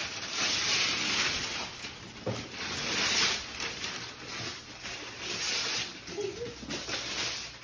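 Wrapping paper rustling and tearing as presents are unwrapped, in uneven swells of crinkly noise.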